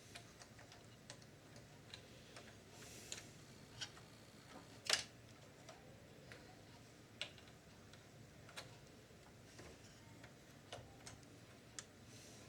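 Faint, irregular small clicks and taps from hands and tools working on a video recorder's tape-loading mechanism, with one louder click about five seconds in.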